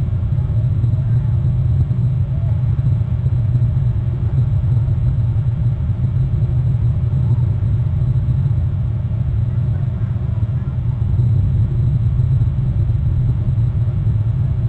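Steady low rumble with no distinct events, typical of wind or distant background noise on an outdoor camera microphone.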